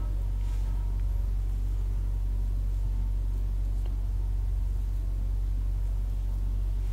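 Steady low hum of background noise with no other sound; it neither rises nor falls.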